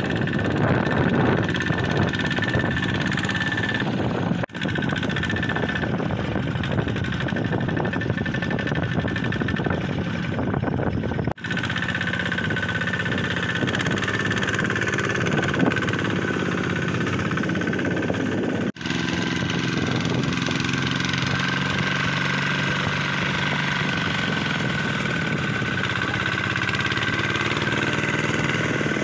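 Kubota ZT155 single-cylinder diesel engine of a two-wheel walking tractor running under load as it hauls a trailer of rice sacks through deep mud, with a steady high whine over the engine. The sound breaks off briefly three times where clips are joined.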